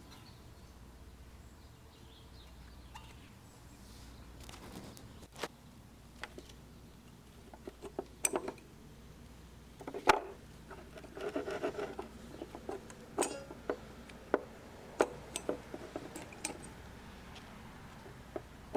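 Brake parts and hand tools handled, metal on metal: scattered clinks and taps with a short stretch of rubbing and clattering about eleven seconds in.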